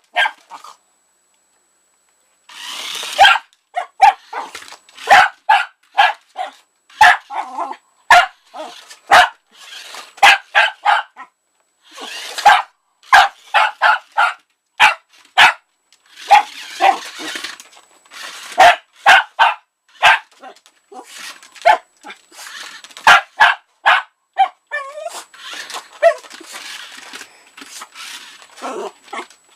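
Yorkshire terrier barking over and over in quick runs of short, sharp barks, about two a second, with a pause of about two seconds near the start.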